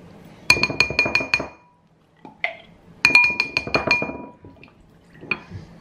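A measuring spoon tapped rapidly against the rim of a ceramic bowl to knock off sticky hoisin sauce: two quick runs of about six ringing taps each, with a couple of single taps between and after.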